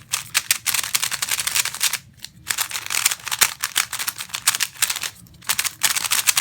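Meilong 3x3 speed cube being turned fast, its plastic layers clacking in rapid flurries, with two short pauses about two seconds and five seconds in.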